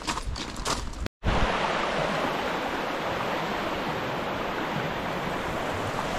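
A few footsteps for about a second, then a sudden break and a steady rush of flowing water.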